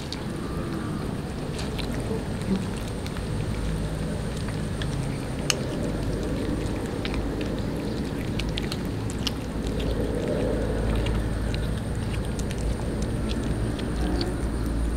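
A cat eating tuna close to the microphone: irregular small clicks of chewing and licking, two of them sharper, over a steady low rumble.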